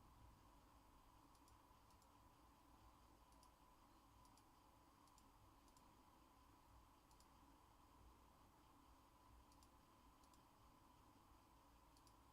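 Near silence: faint room hum with a scattered series of faint, short double clicks, about a dozen spread irregularly.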